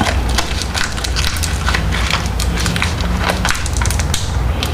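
Hand ratchet clicking in quick irregular runs as bolts are run in snug, over a steady low hum.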